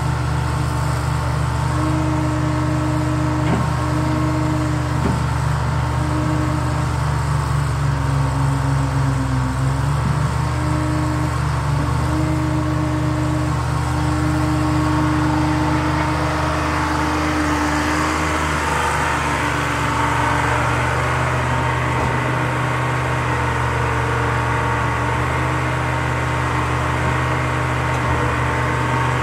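Gradall excavator's engine running steadily while the machine works its telescoping boom and swings. The engine note sags briefly about a third of the way in. A layer of higher-pitched noise builds up around the middle.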